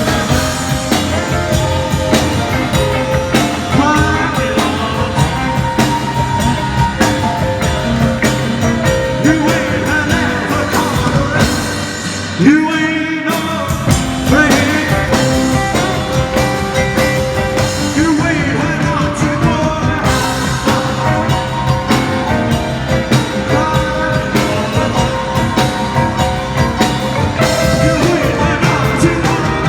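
Rock and roll band playing with drums and electric guitar. About halfway through the music stops briefly, then comes back in with a loud hit.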